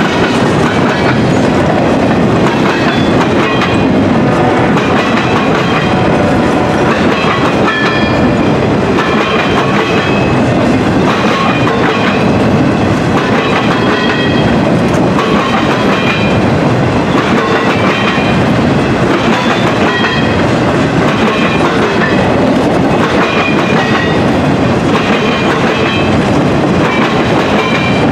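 Freight train cars (boxcars, covered hoppers and a tank car) rolling past at steady speed: a continuous rumble of steel wheels on rail with clickety-clack over the joints, and brief high-pitched ringing tones from the wheels now and then.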